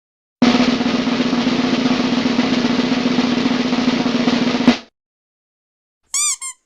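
Snare drum roll sound effect, about four seconds long, ending on a single hit and a quick fade. Near the end come two short, high squeaky chirps that rise and fall in pitch.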